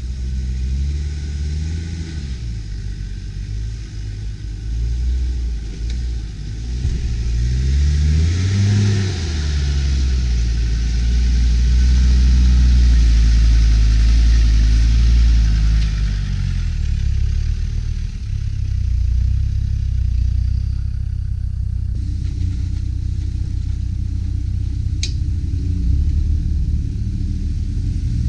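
Land Rover Discovery engine working up a rock climb, revving up and down under load. It is loudest as the vehicle passes close about halfway through. A single sharp knock comes near the end.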